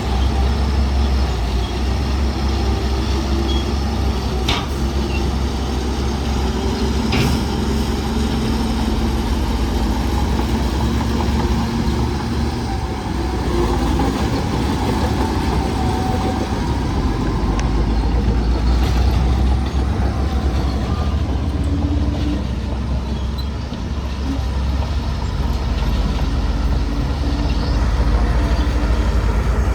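Heavy diesel engine of earthmoving machinery running steadily with a deep rumble, with a sharp clank about four and a half seconds in and another near seven seconds.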